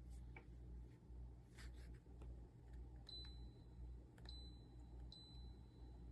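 Near silence: room tone with a low hum that swells and fades, a few faint ticks, and three short, faint high pings.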